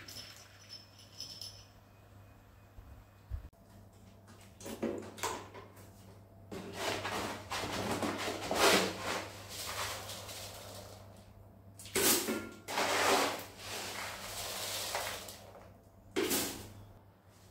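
Granular cat litter being dug and scooped with a litter scoop in a plastic litter box: gritty rattling and scraping in several bursts.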